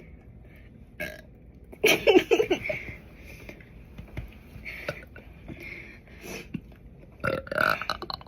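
A girl's loud burp about two seconds in, lasting around a second, with a second loud burst near the end.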